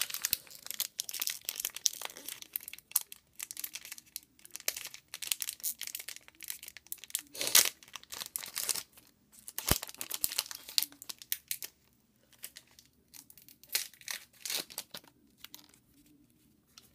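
Baseball card pack wrapper crinkling and tearing open, with the cards inside being handled: a run of irregular crackles and rustles, the loudest about seven and a half seconds in.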